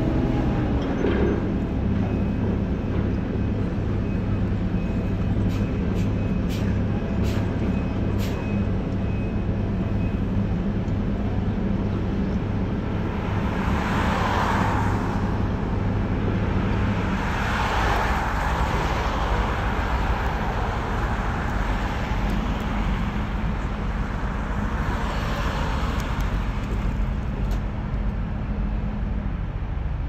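Heavy machinery engine running steadily, most likely the pile-driving crane's, with road traffic passing and swelling up three times, near the middle and toward the end. A few light metallic clicks come about six to eight seconds in.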